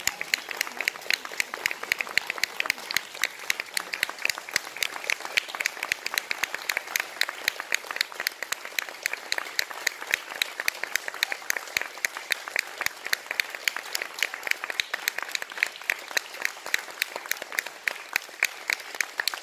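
Audience applauding, a steady stream of hand claps.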